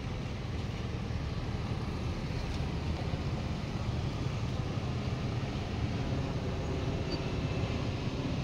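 Scooter riding through city traffic: a steady low rumble of its engine and road noise, with surrounding car traffic.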